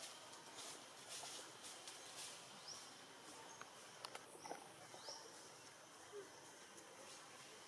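Faint outdoor ambience: a steady high insect hum with two short rising chirps and a few soft clicks about four seconds in.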